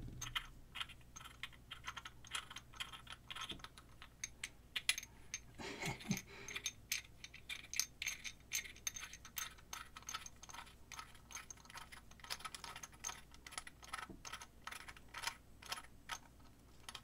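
Faint, irregular clicking and tapping of fingers working the parts of a small aluminum flashlight head, twisting out a threaded plastic piece.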